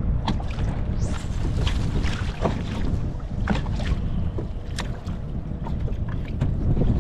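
Wind buffeting the microphone on open water, a steady low rumble, with choppy water lapping against the kayak's hull in irregular small splashes and clicks.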